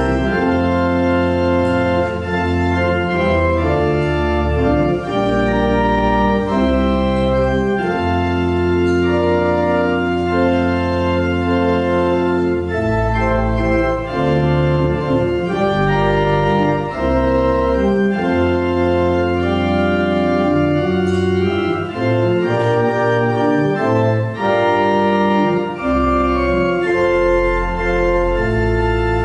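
Church organ playing slow, held chords over deep pedal bass notes, the harmony changing every second or two.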